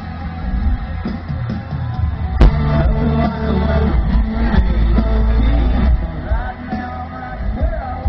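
Live country band playing with a male lead singer, loud and bass-heavy as heard from within the crowd. A sharp knock about two and a half seconds in.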